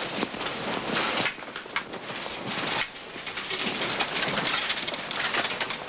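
Hospital corridor background noise: a steady clattering, rustling din with many small clicks and knocks.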